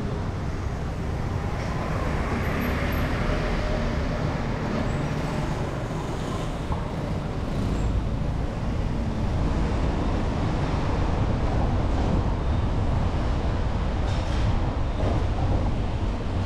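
Street traffic noise: a steady rumble of passing road vehicles.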